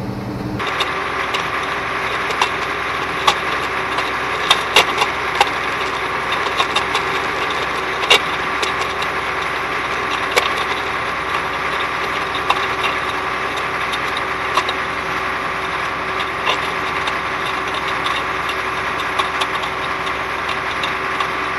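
CAT 14G motor grader's diesel engine running steadily, heard from low beside the front tyre, with many irregular sharp cracks and pops as gravel and small lava rocks crunch under the big tyre rolling over loose material.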